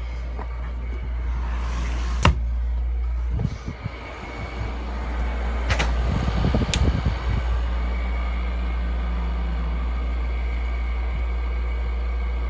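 Zenith 5000 BTU window air conditioner running with a steady low hum. Sharp clicks or knocks come about two seconds in and again around six and seven seconds in.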